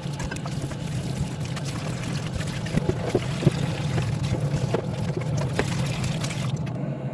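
Water running from a tap and splashing while fridge shelves and parts are washed, with a few scattered knocks of the pieces being handled. It cuts off abruptly near the end.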